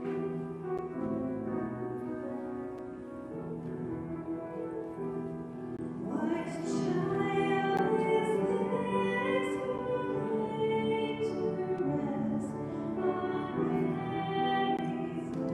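A church hymn with keyboard accompaniment: held chords at first, then a solo singing voice comes in about six seconds in and carries the melody.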